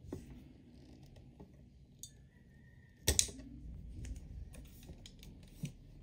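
Clicks and knocks of a computer monitor stand's metal and plastic parts being handled and fitted together, with one sharp clack about three seconds in and a few lighter taps around it.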